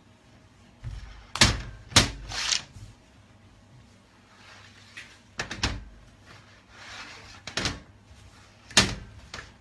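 Irregular sharp knocks and thuds on a stainless steel worktable, about seven spread over several seconds, some in quick pairs, as long ropes of pulled hard candy are handled and laid down.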